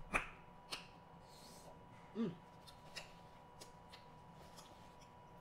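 Eating sounds: scattered sharp mouth clicks and lip smacks while chewing seafood, with one short spoken word about two seconds in.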